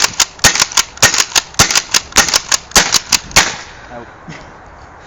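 APS RAM pump-action paintball shotgun fired in quick succession, a fast string of sharp shots and pump-action clacks, about four to five a second, that stops about three and a half seconds in as the magazine runs empty.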